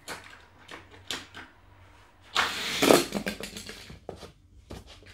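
Light plastic clicks from the start gate of a Hot Wheels multi-lane track, then, about two and a half seconds in, a loud rattling rush lasting under a second as die-cast toy cars run down the plastic track and through the end box, followed by scattered light knocks.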